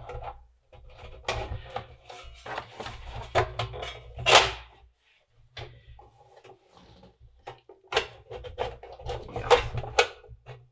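Metal cover of a twin floppy drive case being handled and fitted back on: irregular clunks, knocks and scrapes of sheet metal, the loudest about four seconds in and again near the end.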